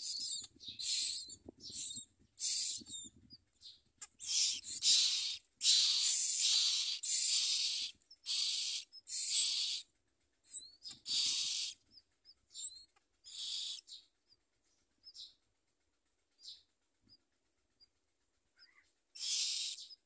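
Common myna nestlings begging with harsh, hissy calls, each under a second. The calls come thick and fast for the first half, thin out to a few short chirps, pause for a few seconds, then start again near the end.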